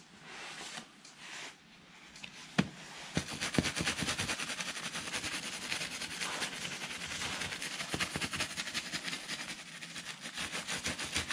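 A few sharp knocks, then rapid, steady dabbing, several strikes a second, of a wool-stencil ink applicator pressed through a stencil onto a woolpack.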